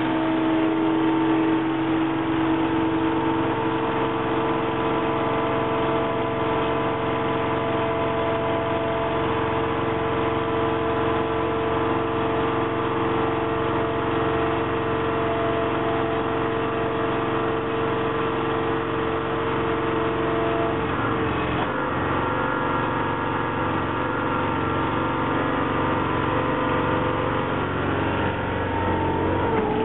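Baler's electric-start Honda engine running and driving the hydraulic pump, a steady loud drone with several whining tones; the tones change about two-thirds of the way through as the hydraulics shift.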